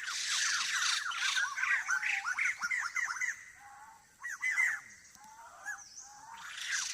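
Forest birds calling: fast runs of short falling notes, several a second, in bouts with a break in the middle.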